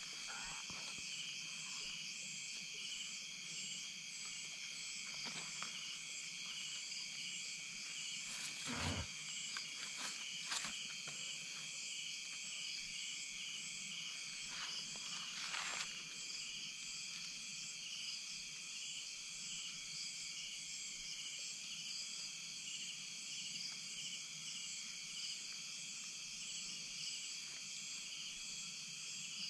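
Night insect chorus trilling steadily in several high-pitched layers, with a few brief rustles or knocks about a third of the way through and again near the middle.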